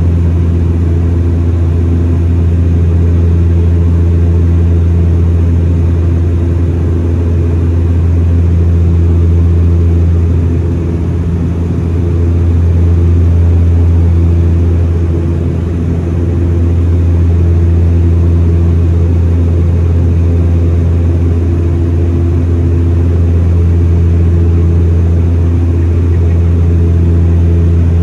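Steady low drone of a Dash 8 Q400's Pratt & Whitney PW150A turboprop engine and six-blade propeller heard inside the cabin during the climb after takeoff. The hum swells and dips slowly a few times around the middle.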